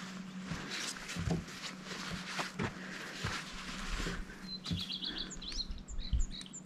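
Scattered rustles and light knocks from hands working a tent's guy line and fabric. A small bird chirps several times in quick short notes over the last two seconds or so.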